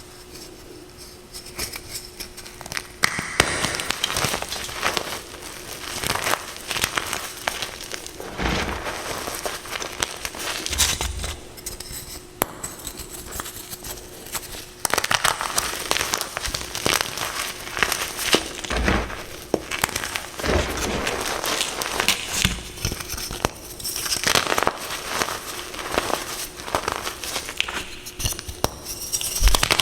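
Reformed gym chalk, gold and white, being crushed: dense, continuous crunching and crackling with many sharp snaps. It is quieter for the first few seconds, then busy.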